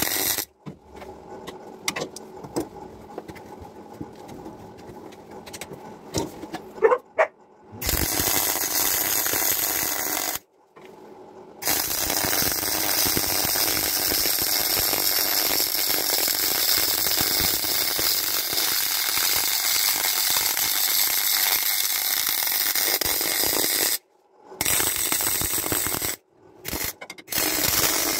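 MIG welding arc laying welds on a replacement Land Rover Series 2a front spring hanger. It runs as several separate welds, each a steady hiss, with short pauses between them. A quieter stretch with a few clicks comes in the first few seconds, and the longest run lasts about twelve seconds.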